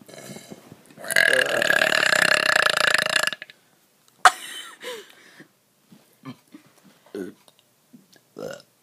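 A person belching on purpose: one long, loud burp lasting about two and a half seconds, starting about a second in.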